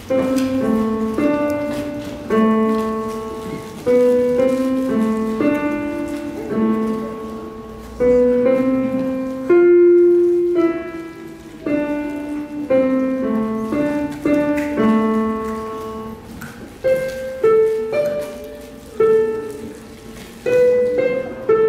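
Digital piano played slowly: a simple melody of held notes over a lower accompaniment, a new note or chord struck about once a second, with some chords louder than others.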